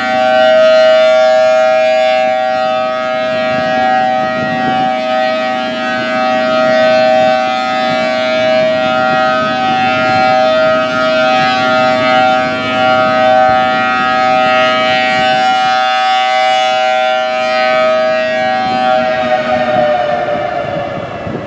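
Federal Signal Thunderbolt 1000T outdoor warning siren, reverse-wired, sounding a steady alert tone whose loudness swells and fades every few seconds as the horn rotates. Near the end its pitch slides down and it fades as the siren winds down.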